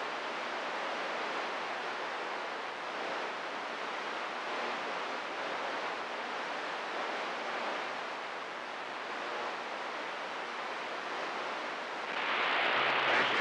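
CB radio receiver hissing with the squelch open between transmissions: steady static, growing louder about twelve seconds in.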